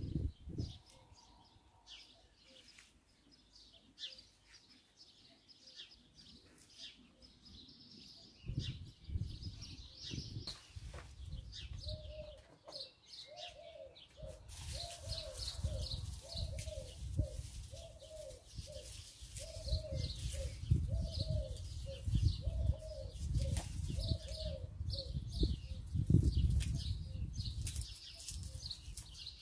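Garden birds: high chirps throughout, and in the middle a long run of evenly repeated low coos, a little more than one a second, typical of a dove. Under them, a low rumbling noise from about a third of the way in.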